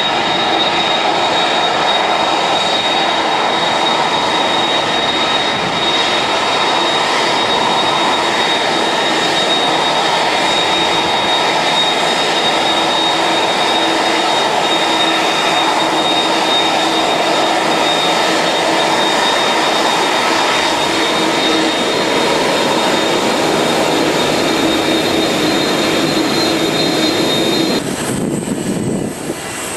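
Airbus A300 twin-jet taxiing, its turbofan engines running at taxi power with a steady roar and a high, thin whine. Near the end the sound changes abruptly to another jet's engines, a McDonnell Douglas MD-80-series taxiing, with a higher whine.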